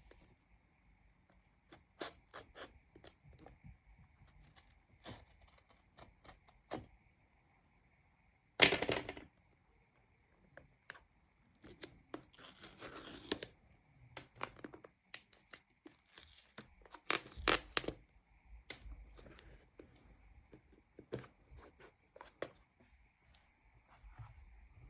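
Packaging of a new phone box being opened by hand: paper seal strips torn off and cardboard and wrapping handled, with scattered clicks and rustles. The loudest tear is about nine seconds in, with more around thirteen and eighteen seconds.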